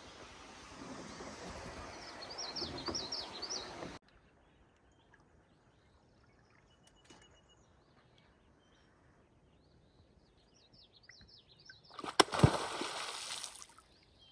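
A beaver slaps its tail on the lake surface as it dives: one sharp, loud smack about twelve seconds in, then a splash that dies away over a couple of seconds. Earlier, birds chirp quickly over outdoor noise.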